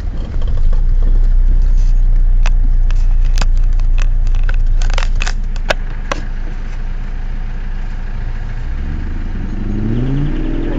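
Off-road 4x4 driving over rough ground: a steady low engine rumble with a string of sharp knocks and rattles in the first half, then the engine's pitch rising and falling near the end.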